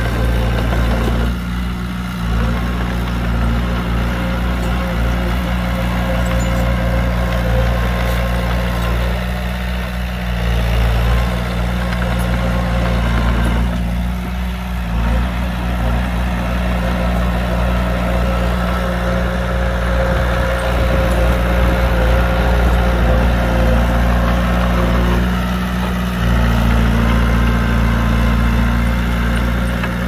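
Heavy diesel engine of earth-moving machinery running steadily, its sound shifting in strength several times as the machine works.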